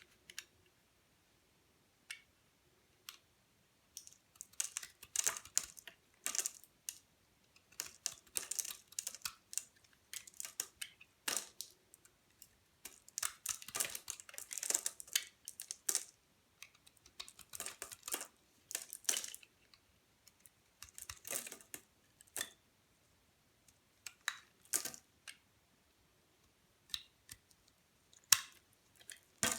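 Bar of dry soap being cut with a blade: crisp, high-pitched crackling and clicking as it slices through, in clusters a second or two long with short pauses between.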